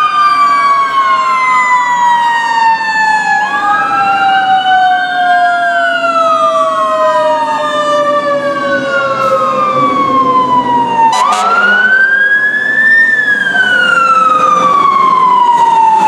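Fire apparatus sirens: a Federal Q2B mechanical siren slowly winding down in pitch, then spun back up sharply about 11 seconds in and winding down again, layered with an electronic wail siren that rises and falls every few seconds.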